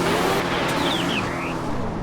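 Off-road vehicle's engine revving as it drives through mud, its pitch climbing briefly and then falling away, over a steady rushing noise.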